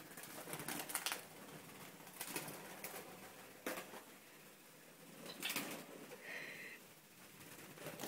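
Budgerigars' wings flapping in about four short bursts as they fly about a small room, with one brief budgie chirp about six seconds in.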